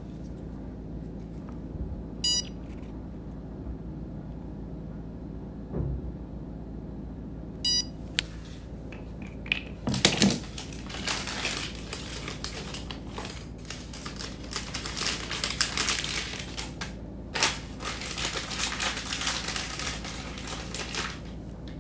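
Two short electronic beeps about five and a half seconds apart from a dental LED curing light's timer, heard over a steady low hum. From about halfway on come some ten seconds of crinkling, rustling and small clicks of handling.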